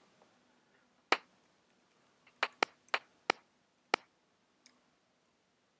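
About seven sharp, single clicks at irregular spacing, with near quiet between them: computer controls being pressed while stepping through video frames in an editor.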